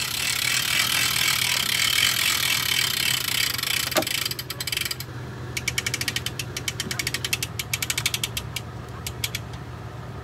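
Boat trailer's hand winch being cranked: its ratchet pawl clicks rapidly and evenly through the second half as the strap draws the boat onto the trailer. Before that there is a steady rushing noise, the loudest part of the sound.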